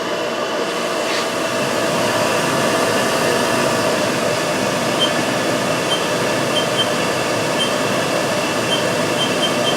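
Haas Super Mini Mill CNC spindle running steadily at 2,000 RPM, a steady whir with several held tones, coming up slightly in level over the first couple of seconds. The spindle has already been through a warm-up procedure.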